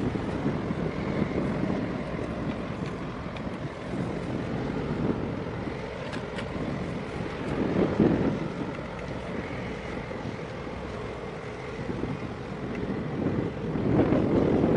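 Wind buffeting the microphone, gusting harder about eight seconds in and again near the end, over a low rumble of harbour boat engines.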